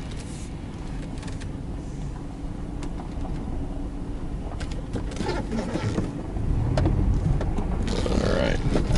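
2003 Subaru Forester with a 2.5-litre flat-four being driven, its engine and road noise heard from inside the cabin as a steady low rumble. The rumble grows louder about six seconds in, and a few light clicks and rattles sound over it.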